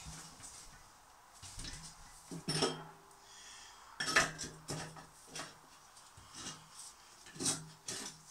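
Irregular metallic clicks and clinks of a ratchet strap's metal ratchet buckle and a stainless steel flue pipe being worked by hand, as the strap is tightened to squeeze the pipe's end narrower.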